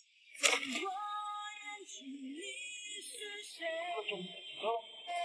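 Background music: a woman singing a Chinese pop song with accompaniment. The voice comes in about half a second in and carries on in held, gliding notes.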